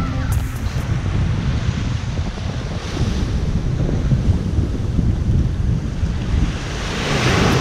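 Small waves breaking and washing up on a sandy beach, their hiss swelling about three seconds in and again near the end, with wind rumbling on the action camera's microphone.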